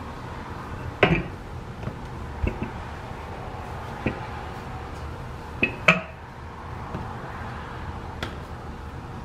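Wooden rolling pin working biscuit dough on a floured countertop, giving a handful of irregular knocks and clacks, loudest about a second in and again near six seconds, over a steady low hum.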